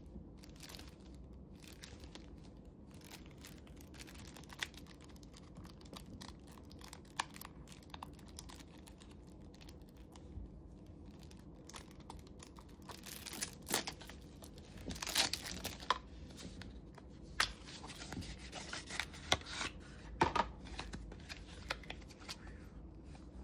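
Packaging being torn open and crinkled by hand: scattered crackles and rips, coming thicker and louder in the second half.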